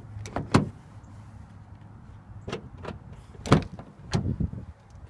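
Sharp clicks and clunks at a 2011 Nissan Rogue's driver's door: the power door locks actuating from the request button on the handle, then the door latch releasing and the door opening. The loudest clunk comes about three and a half seconds in.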